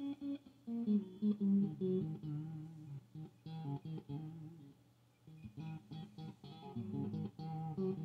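Electric guitar played through a Fender Deluxe Reverb tube amp at bedroom volume: single-note melodic lines over a held low bass note from a looper, with a short quieter patch near the middle.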